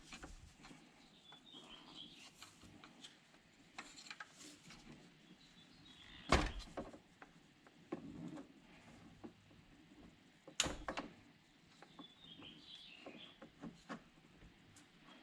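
Flathead screwdriver prying at the cap on the old drive-belt pulley of a BMW F30: scattered small clicks and scrapes, with two sharper knocks, one about six seconds in and another near eleven seconds.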